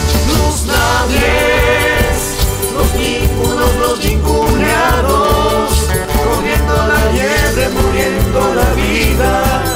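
A man singing a song in Spanish, with guitar and a band behind him and a steady deep bass pulse.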